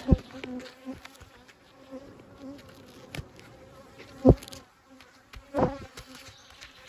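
Honey bees buzzing around an open hive, a steady low hum. Several sharp thumps cut across it, the loudest about four seconds in and another over a second later.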